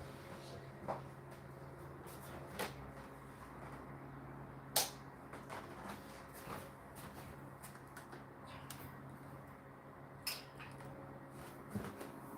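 Condenser tumble dryers running: a steady low motor hum, with a few sharp clicks over it.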